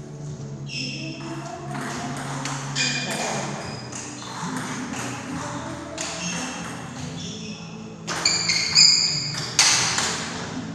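Table tennis rally: the ball clicking off the paddles and bouncing on the table again and again, with the hardest, loudest hits near the end.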